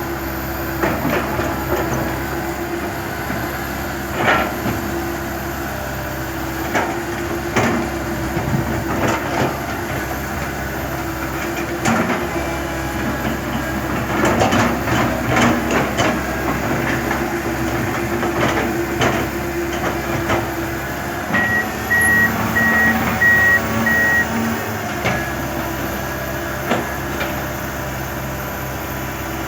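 Komatsu PC160LC hydraulic excavator's diesel engine running steadily under irregular metal clanks and knocks from the working machinery. About two-thirds of the way in, a back-up alarm beeps five times.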